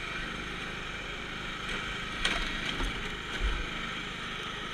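Riding lawn mower engine running steadily as the mower drives over rough, stick-strewn dirt, with a few knocks and low thumps from about two to three and a half seconds in.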